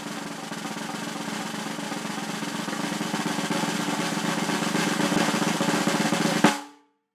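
Snare drum roll that builds slowly in loudness for about six seconds and ends on a single loud accented hit, then stops abruptly.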